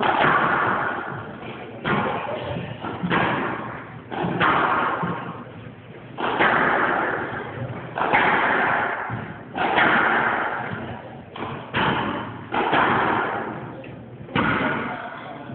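Squash rally: the ball struck by rackets and smacking off the court walls, about ten sharp bangs spaced one to two seconds apart, each ringing out briefly in the enclosed court.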